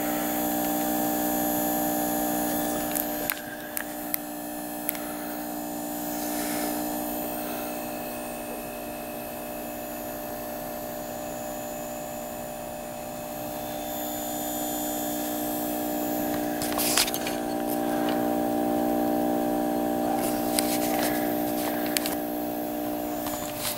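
Steady electrical hum made of several tones stacked together, from a powered-up Afterburner+ vacuum-tube linear amplifier with its tube filaments lit. A few short clicks break in about three, seventeen and twenty-one seconds in.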